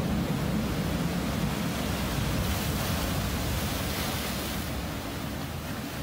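Ocean swell surging in over a shore of rounded dark boulders and cobbles: a steady roar of surf, with a brighter hiss of foaming water from about two and a half seconds in, lasting about two seconds.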